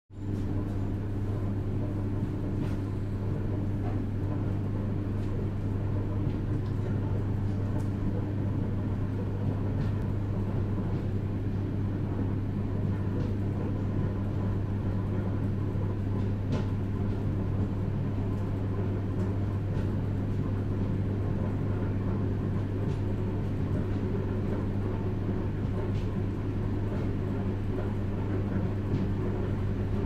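Inside a moving passenger train's vestibule: the steady rumble of the wheels and running gear on the rails, with a low hum and occasional light clicks and rattles.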